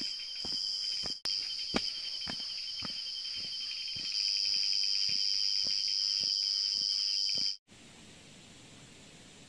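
A chorus of night insects: a loud, steady, high trill with a fast-pulsing chirp just beneath it, over soft, irregular footsteps on a path. About 7.5 seconds in it cuts off suddenly to a faint, steady hiss of a shallow stream.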